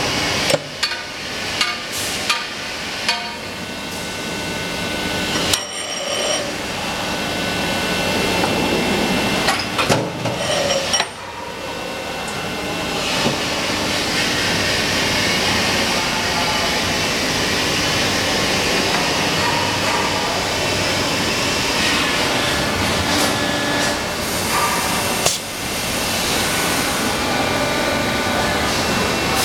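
Plastic injection moulding machine working through a mould trial cycle, the mould opening and closing. A run of metallic knocks and clanks in the first dozen seconds gives way to a steady machine noise, with another clunk about 25 s in.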